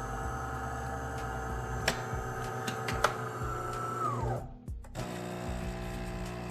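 De'Longhi Dinamica Plus automatic espresso machine running its self-cleaning rinse: a steady motor hum with two clicks. About four seconds in the motor winds down with a falling whine, and after a brief pause the pump starts humming.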